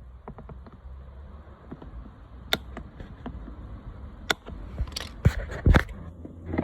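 Cutters snipping off the protruding ends of the metal hot-stapler staples embedded in plastic: sharp clicks, one by one, with several louder snips close together near the end.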